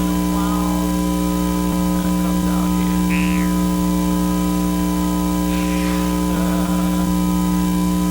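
Loud, steady electrical hum made of several unchanging tones, the low buzzing tones strongest, with faint, muffled, wavering voice-like sounds buried underneath now and then.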